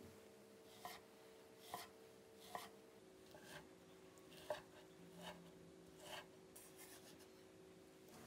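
Chef's knife dicing tomato on a wooden cutting board: a soft cut and tap of the blade on the board about once a second, eight or nine strokes.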